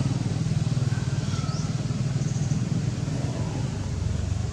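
A small engine running steadily with a low, even rumble. A brief faint high squeak rises over it about a second and a half in.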